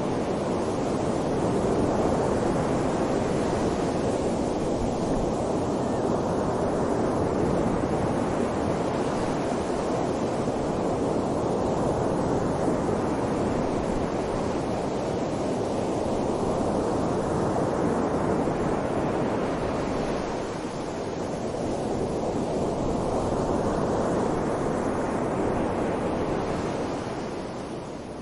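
Wind blowing hard in a snowstorm, a continuous rushing that swells into gusts and eases again every several seconds, dropping away near the end.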